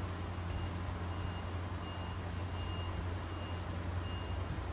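A short, high electronic beep repeating about every 0.7 seconds, some beeps faint or missing, over a steady low hum.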